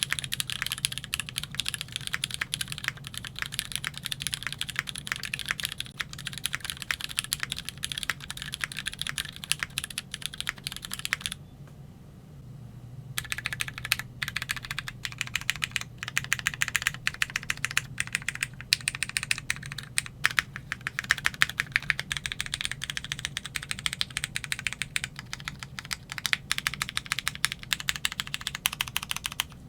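Typing on a Keychron Q3 mechanical keyboard with lubed Cherry MX Black Hyperglide linear switches in an aluminum plate: a fast, continuous run of keystrokes that pauses for about two seconds partway through, then resumes.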